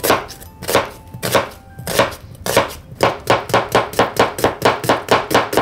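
Kitchen knife chopping onion on a cutting board: a few separate cuts at first, then from about two and a half seconds in a fast, even run of about five strokes a second as the onion is minced.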